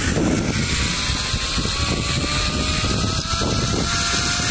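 Wind rushing and buffeting over the microphone while riding an open chairlift along its cable, with a faint whine that slowly rises in pitch.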